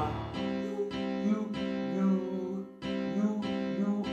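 Background music led by strummed acoustic guitar, with a brief drop about three seconds in before it picks up again.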